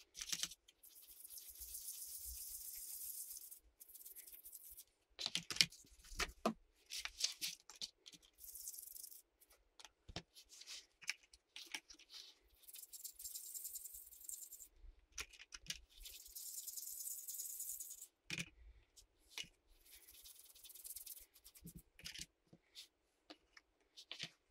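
Small differential parts being scrubbed clean: several stretches of high hissing, each a second to three seconds long, between short clicks and knocks of the parts being handled.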